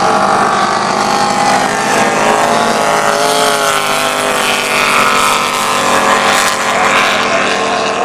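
Drag boat engines running hard as the boats race down the course, the engine note shifting in pitch about halfway through.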